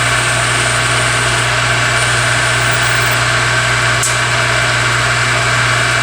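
Lathe running steadily with a loud, even hum while it cuts a carburetor squirter thread-repair insert to length.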